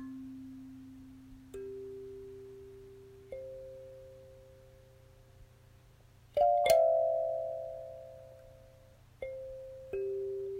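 Slow background music of bell-like struck notes, each ringing out and fading over a couple of seconds, rising step by step, with a louder chord about six and a half seconds in.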